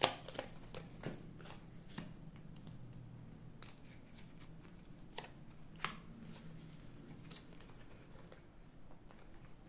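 Playing cards being handled and laid on a table: a string of light card snaps and taps, the loudest at the very start and twice around five to six seconds in.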